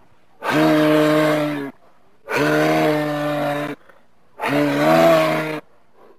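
Moose calling: three long calls, each a little over a second and held at a steady pitch, with short gaps between them.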